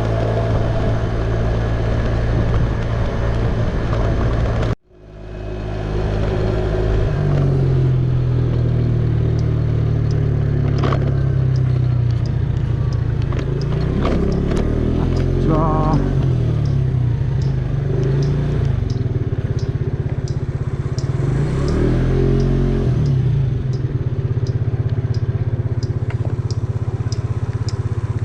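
Kawasaki GPZ900R's inline-four engine running steadily, its pitch shifting a little now and then. The sound cuts out abruptly about five seconds in and quickly comes back, and a faint regular ticking runs through the second half.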